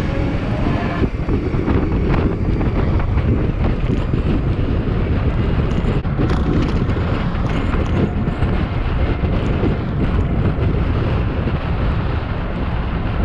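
Steady, loud wind buffeting the camera microphone while riding an electric bike at speed, a dense rumble of rushing air.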